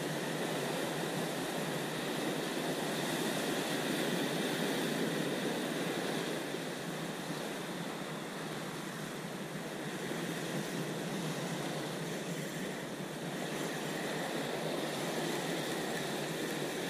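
Sea surf breaking and washing over rocks, a steady rushing that swells and eases slowly.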